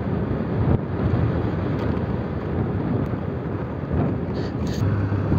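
Wind buffeting the microphone on a moving motorcycle, an even rush with the bike's engine and tyres running underneath.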